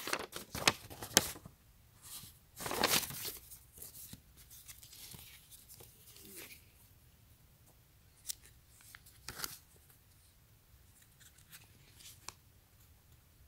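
Paper rustling and crackling as a folded sheet and a folded instruction manual are opened out and handled. Busiest in the first three seconds or so, then two brief crinkles later and little after.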